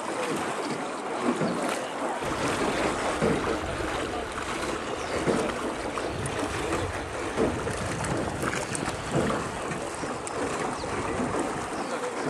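A small river boat being rowed, with oar strokes in the water about every two seconds over steady wind noise on the microphone.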